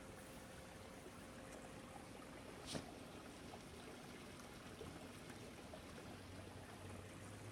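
Near silence: faint steady outdoor hiss, with one short click about three seconds in and a faint low hum coming in near the end.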